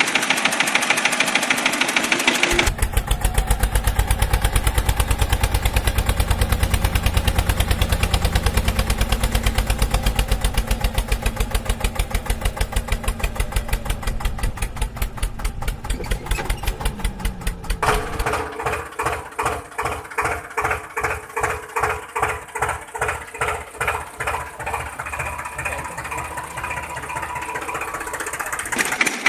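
Tractor engine chugging with an even, rapid beat, in stretches that switch abruptly to a different engine sound about three seconds in and again about eighteen seconds in.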